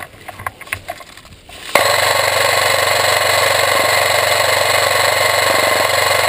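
Airsoft M249 SAW electric gun with upgraded internals firing one long full-auto burst: a loud, steady, rapid mechanical buzz of the gearbox cycling, starting abruptly about two seconds in.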